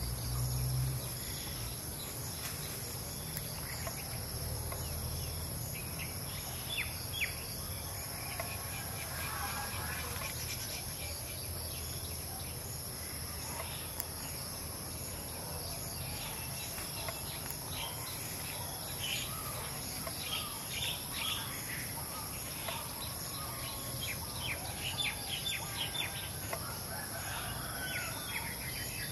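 Outdoor ambience: a steady high-pitched drone of insects, with birds chirping and calling on and off, the calls coming thicker in the second half.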